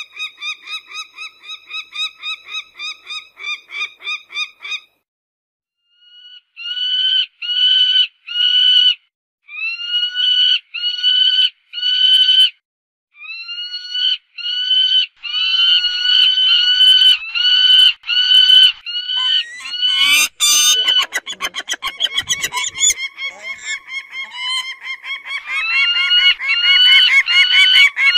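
Peregrine (shaheen) falcon calling loudly: a fast run of harsh repeated notes, a short pause, then slower separate calls at about two a second. About twenty seconds in there is a loud harsh burst, followed by a dense run of fast calls again.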